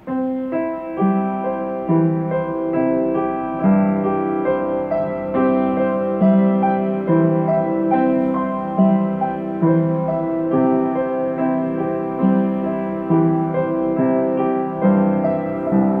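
Slow piano music that starts suddenly. Each note is struck and then fades, and the notes come roughly once a second.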